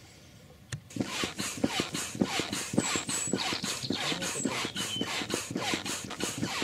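Foot pump inflating a PVC inflatable boat: quick, even puffs of air, about five a second, starting about a second in.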